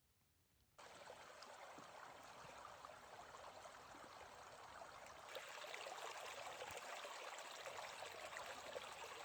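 Flowing water of a stream, a steady rushing and trickling that cuts in abruptly about a second in and grows a little louder and brighter about halfway through.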